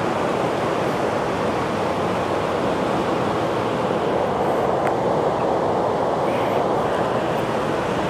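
Steady rushing background noise with no speech, even throughout.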